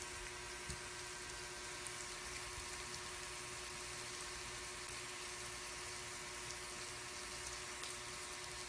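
Chicharon sisig on a hot cast-iron sizzling plate, sizzling steadily and quietly with a few faint pops, over a steady low hum.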